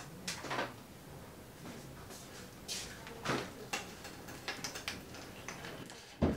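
Scattered light clicks and knocks of small items and containers being handled and set down on a work counter, with one sharper knock near the end.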